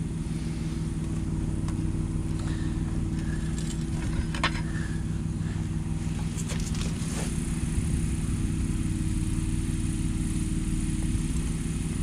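Diesel-fired furnace burner with a recrystallized silicon carbide nozzle running: a steady, humming drone. A few faint clicks sound about four and seven seconds in.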